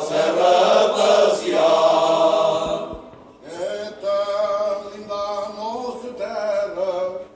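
Male choir singing Cante Alentejano, unaccompanied polyphonic folk song, the voices sustained and sliding between notes. The singing breaks off briefly about three seconds in, then resumes a little softer.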